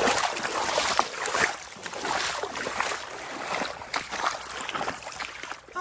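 Waterfall's rushing water: a steady, loud splashing hiss.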